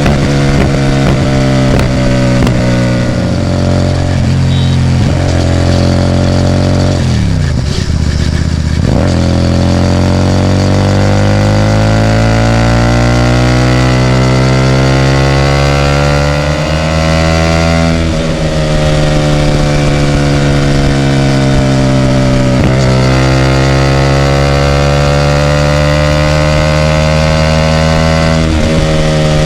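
Hyosung GT250R's V-twin engine running through a loud Ixxile aftermarket exhaust, its pitch rising and falling with the revs. The pitch drops sharply about a quarter of the way in, climbs slowly for around ten seconds, falls, then climbs again near the end.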